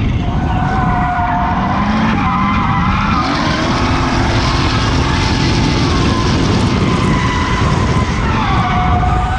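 Nissan Silvia S15 drift car's turbocharged SR20 engine revving hard while its rear tyres squeal and skid through a sustained drift. The engine pitch climbs several times with the throttle, and the tyre squeal wavers up and down.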